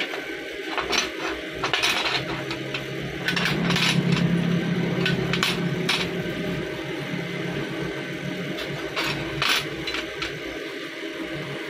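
Steel knife blanks clinking and scraping on a steel workbench as they are moved and laid in a row, about ten short metallic knocks. A steady machine hum runs underneath.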